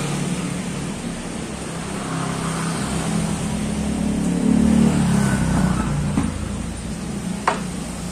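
A motor vehicle engine running, revving up and at its loudest about halfway through, then settling. A single sharp knock near the end.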